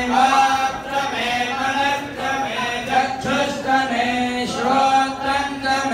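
A group of priests chanting Sanskrit mantras together on a steady recitation pitch, as part of the homa's closing offering.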